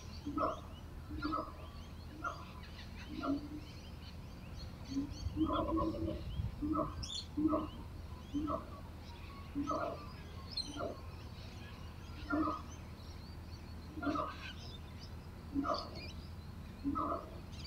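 Outdoor birdsong: one bird gives a short, low, pitched call over and over, about once a second, while smaller birds chirp faintly higher up. A steady low rumble sits underneath.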